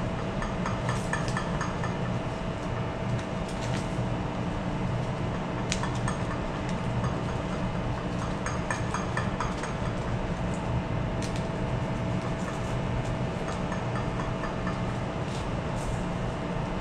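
Steady low hum of a ship's machinery, with scattered light clicks and clinks over it.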